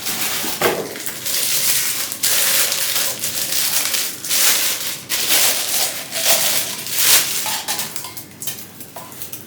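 Plastic packaging crinkling and rustling as it is handled, in irregular on-and-off crackles that die down near the end.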